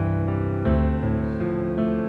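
Background piano music: held chords that change about once a second.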